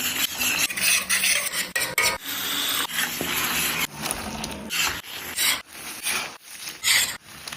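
A metal spoon scraping and stirring in a cooking pot: a run of short scrapes, with one longer steady scrape about two to four seconds in.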